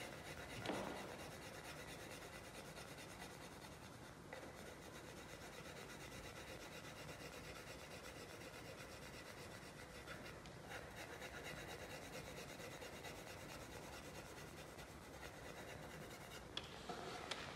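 Pencil shading on paper pinned to a drawing board: a faint, steady scratching as the graphite is worked back and forth to build up tone.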